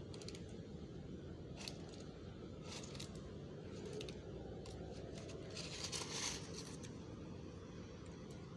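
Thin plastic bag crinkling and rustling in short crackles, with small clicks and scrapes, while a cat pulls food from it; the longest and loudest crinkle comes about six seconds in. Steady low background noise runs underneath.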